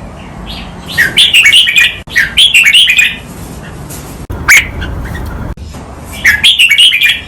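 Red-whiskered bulbul singing loud, clear song phrases of rapid chirpy notes, given in doubled pairs: two phrases back to back about a second in, a single sharp note near the middle, then another phrase near the end.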